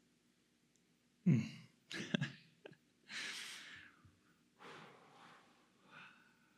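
A man's breath sounds close to the microphone: a sudden loud, sneeze-like burst about a second in, followed by a few long, hissing exhales.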